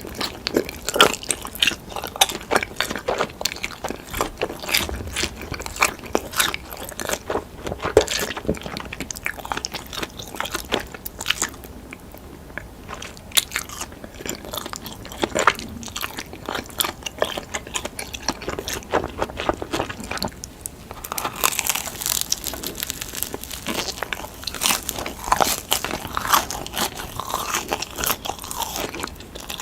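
Close-miked eating of deep dish pizza: a run of irregular bites and crunches with chewing between them. A brighter crackly hiss comes in about two-thirds of the way through.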